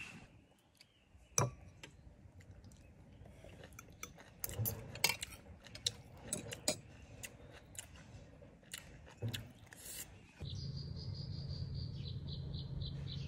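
Fork and spoon clinking and scraping against ceramic plates in scattered sharp clicks while people eat. Then, about ten seconds in, a steady high chirring sets in, rapidly pulsing at an even rate over a low hum.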